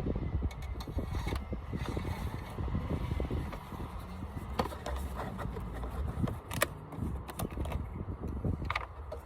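A quart bottle of motor oil being handled and poured into the oil filler of a 3.0 Duramax diesel while topping up the last quart. Scattered clicks and scrapes, with a few sharper knocks, sound over a steady low rumble.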